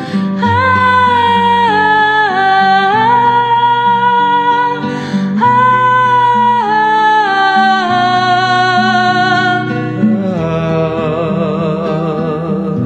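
Acoustic music: guitar under a held, sliding melody line that takes on a wide wavering vibrato about ten seconds in.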